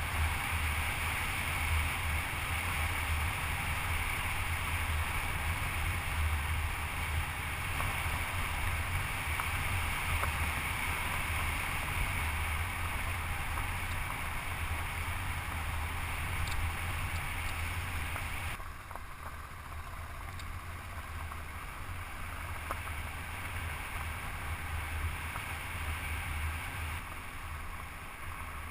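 Honda CB500X motorcycle's parallel-twin engine running with the bike under way, with wind noise on the microphone. The level drops a little about two-thirds of the way through.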